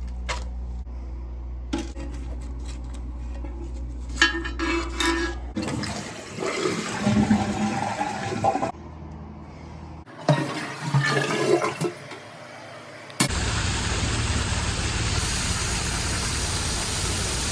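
Toilet flushing: water gurgles and rushes through the bowl, then a steady rushing hiss starts abruptly about two-thirds of the way in as the tank refills. The flush tests the toilet's flapper.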